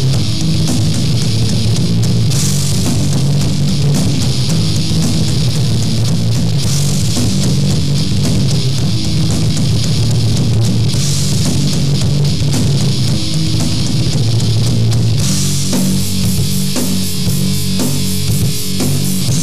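Loud heavy rock music: distorted electric guitar over a drum kit, with the cymbals dropping out and coming back every few seconds.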